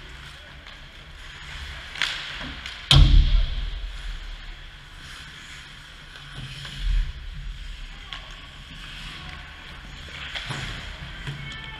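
Ice hockey play close to the goal: a steady scrape and hiss of skates on the ice, with a sharp click about two seconds in, a loud knock with a heavy thud about three seconds in, and a duller thump near seven seconds.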